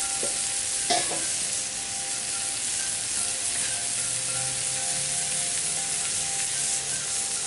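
Vegetables sizzling steadily on a Blackstone flat-top griddle, with one short knock about a second in.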